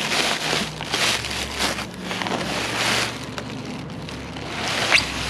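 Packaging being handled and pulled open during an unboxing: rustling and crinkling in irregular bursts, with a short squeak near the end.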